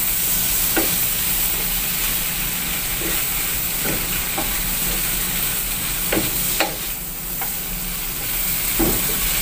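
Anchovy, tofu and green chilli sambal sizzling in a frying pan while a wooden spatula stirs it, with a few short scrapes and knocks of the spatula against the pan at irregular intervals.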